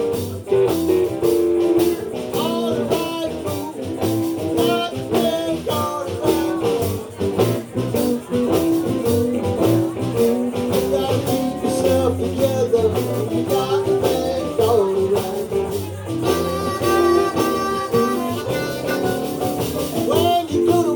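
Live blues band playing an instrumental passage: guitar lead lines over bass and a steady drum beat.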